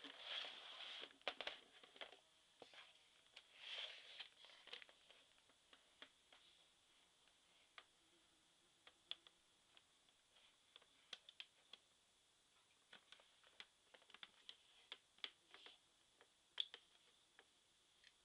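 Near silence broken by faint scattered clicks and taps, denser in the first few seconds, over a faint steady high hiss.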